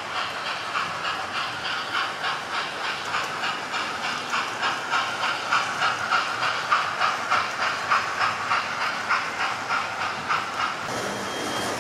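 Model railway steam locomotive and coaches running on the layout track, with a regular chuffing, clicking beat about four times a second. It grows louder as the train passes closest, then gives way to a steadier hum near the end.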